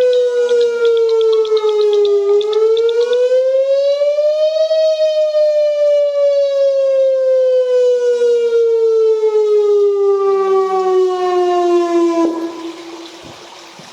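Whelen WPS 2905 electronic warning siren sounding a slow wail for a tsunami warning: one harsh tone that falls, rises, then falls slowly over several seconds. It cuts off suddenly near the end, leaving a quieter hiss.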